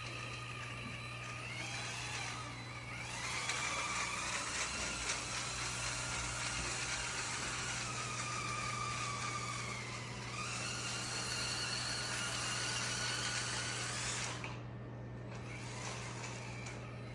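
Small electric motor and gearbox of an FMS FCX24 Power Wagon RC crawler whining as it drives, the pitch rising and falling with speed, stopping about fourteen seconds in.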